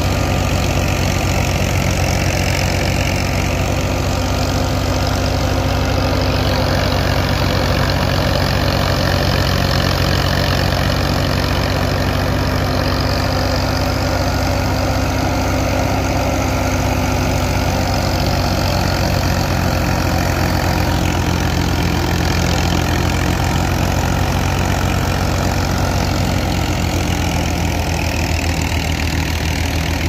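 Tractor diesel engine running steadily under load, driving a National wheat thresher, with the thresher's drum and fan whirring and hissing as wheat straw is fed through.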